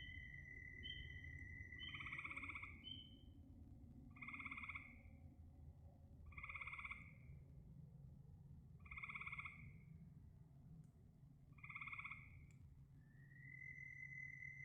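Frogs croaking: five calls, each under a second long, repeating about every two and a half seconds. A steady high trill stops as the croaking begins and comes back near the end.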